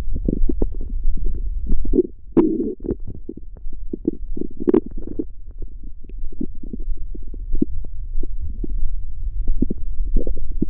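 Stomach growling and gurgling: a quick run of short gurgles and pops over a steady low rumble, with louder gurgles about two and a half and about five seconds in.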